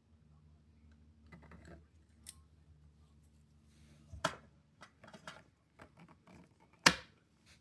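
Small clicks and taps of metal pistol parts and tools being handled during disassembly. Two sharper knocks come about four and seven seconds in, the second the loudest.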